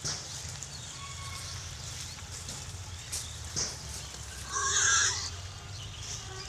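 A pig squealing once, short and loud, about four and a half seconds in, over a steady low background rumble with a couple of faint clicks.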